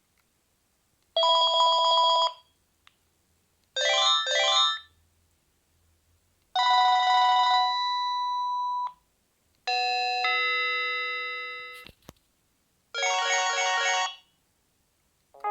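Panasonic KX-TG8301JT cordless phone cycling through its ringtones: five short electronic ringtone melodies in turn, each cut off after a second or two with brief silent gaps between. One bell-like tone fades out, and a click sounds about twelve seconds in.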